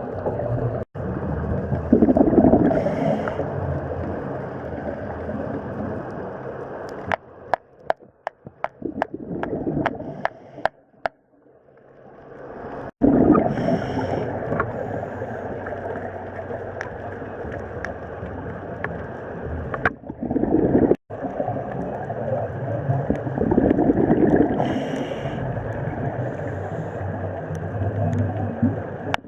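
Underwater scuba breathing: a diver's exhaled bubbles from the regulator rumbling and gurgling in long swells, with a lull of scattered bubble clicks about a third of the way in before the next breath bursts out.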